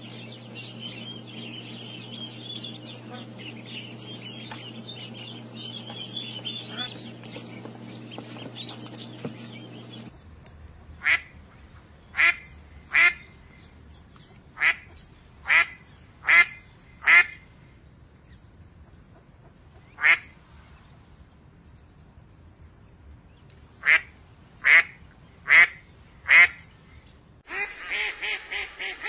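Muscovy ducks calling: about a dozen short, sharp calls in small clusters through the middle, with a denser run of calls near the end. Before that, a steady hum with fast chattering in the background.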